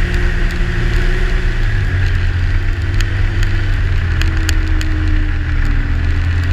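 Yamaha Sidewinder snowmobile's turbocharged three-cylinder engine running steadily at cruising speed on a groomed trail, with wind noise and scattered sharp clicks over it. The engine note shifts slightly about two seconds in.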